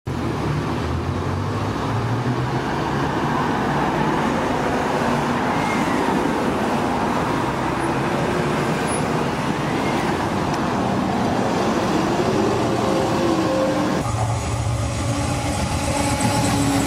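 Road traffic: double-decker bus and car engines running, with a whine that rises and falls twice as a bus pulls away. About 14 seconds in, the sound cuts to a passenger train approaching, its engines running steadily.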